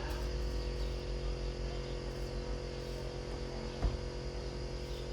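A steady low machine hum with several fixed tones, and a single short knock a little under four seconds in.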